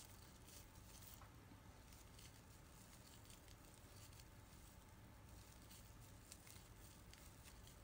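Near silence: faint rustling and scattered light ticks from a metal crochet hook and sparkly scrubber yarn as double crochet stitches are worked, over a low steady room hum.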